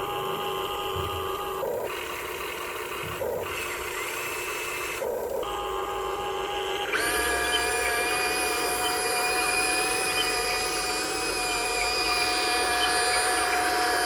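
Huina 1580 remote-control excavator's small electric motors whining as it works. The whine drops out briefly three times in the first five seconds, then changes to a higher, fuller whine about seven seconds in as other functions run.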